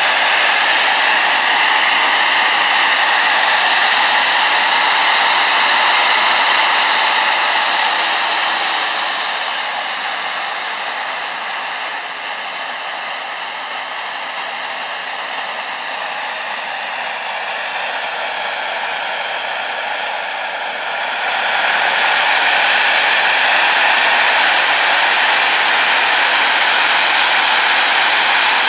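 Homemade experimental jet engine running loud and steady, a rushing blast with a thin high whine over it. About a third of the way in it settles a little lower, and about two-thirds of the way in it comes back up sharply to full.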